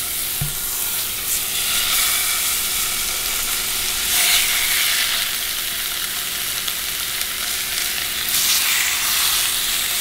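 Fish fillets sizzling as they are shallow-fried in hot butter in a skillet. The steady sizzle swells a few times as more pieces go into the pan.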